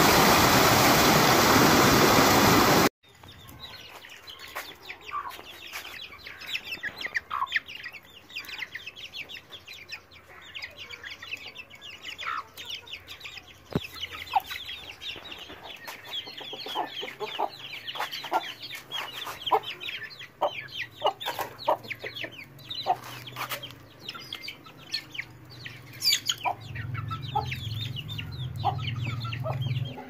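Waterfall rushing loudly for about the first three seconds, then a sudden cut to a flock of young Aseel and desi chickens. They keep up many short, falling high peeps mixed with lower clucks. A low hum comes in near the end.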